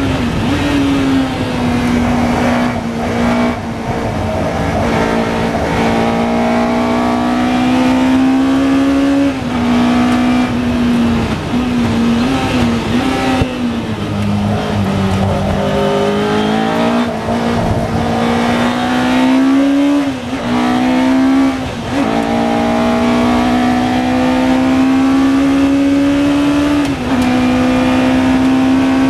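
Lola T292 sports-racing car's engine heard from the cockpit at racing speed, with an upshift about a second in. About halfway through it slows hard for a corner, the note falling and wavering through downshifts, then it pulls away again, the pitch climbing with gear changes near the end.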